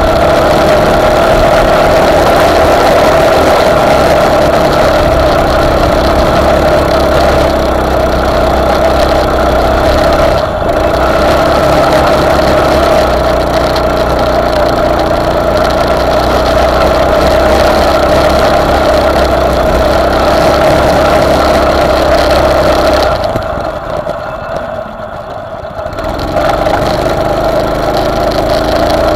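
Single-cylinder Honda GX390 engine of an off-road buggy running hard under load, loud and steady, then dropping to a quieter note for a few seconds near the end before picking up again.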